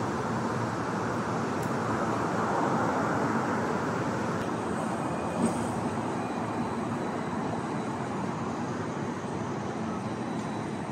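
Steady city street traffic noise, swelling as a vehicle passes two to three seconds in, with a brief knock about five seconds in.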